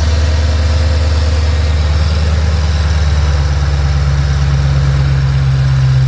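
2008 Ford Mustang GT's 4.6-litre V8 idling steadily, with its note shifting a little higher just past halfway. The accessory belt is running smoothly on newly replaced idler and tensioner pulleys, with no rubbing or scratching.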